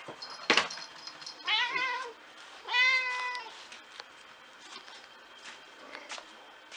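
Domestic cat meowing twice, the first call about a second and a half in and the second, steadier one just under three seconds in, each well under a second long. A sharp knock comes just before the first meow.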